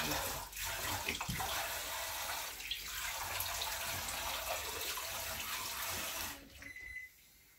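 Water running from a kitchen tap into a sink in a steady stream, shut off about six seconds in.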